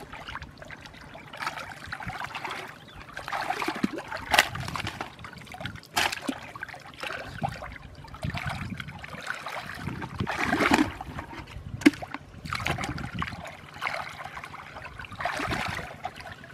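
Hands sloshing and splashing through shallow muddy water, groping along the bottom for fish, in irregular swishes with a few sharper splashes.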